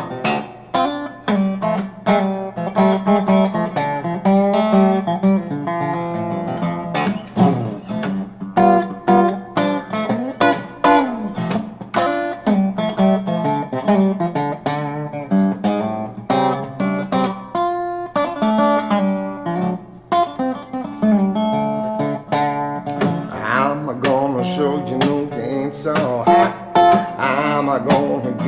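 Acoustic guitar playing an instrumental break, strummed chords mixed with picked notes.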